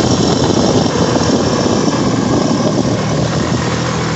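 Honda ATV engine running under load on a snowy hill climb, with a dense rushing noise over it. About three seconds in, the engine settles into a steadier hum.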